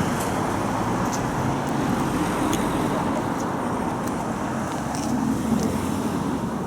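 Steady street noise of road traffic running past, with a few faint clicks.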